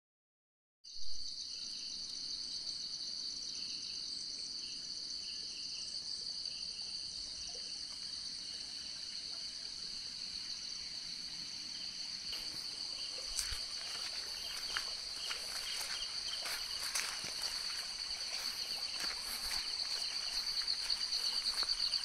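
Insect chorus of steady, shrill trilling in several high pitches, starting abruptly about a second in. In the second half, scattered short clicks and knocks are heard over it.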